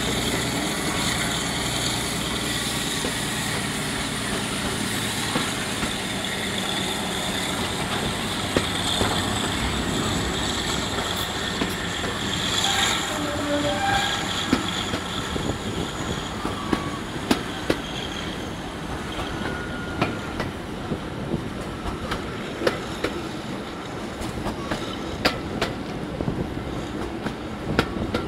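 Class 52 Western diesel-hydraulic locomotive D1015 hauling its train on the move, its twin diesel engines running steadily under the wheel noise. The wheels give sharp clicks over rail joints, more often in the second half.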